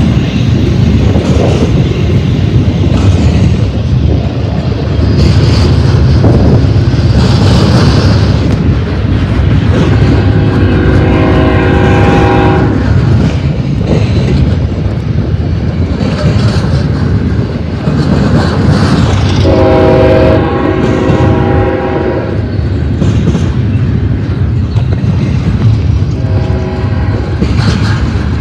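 Double-stack freight well cars rolling past close by: a loud, steady rumble and clatter of steel wheels on rail. Four long, pitched tones rise out of it and fade at intervals: near the start, about a third of the way in, about two-thirds in, and near the end.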